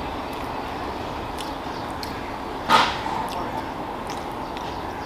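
Steady background room noise, with one short, sharp sound a little past halfway through.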